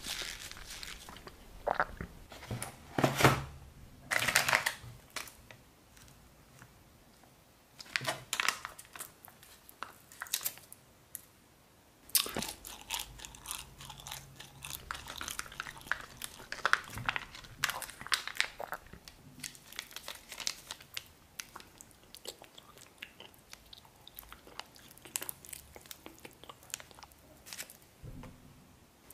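Crisp crunching bites and chewing, loudest a few seconds in, then a thin plastic sauce sachet crinkling as it is handled, torn open and squeezed.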